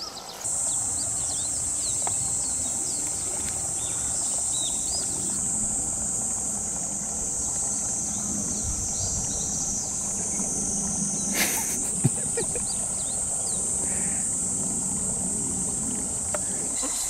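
Steady high-pitched drone of insects, setting in abruptly about half a second in, with scattered short bird chirps over it.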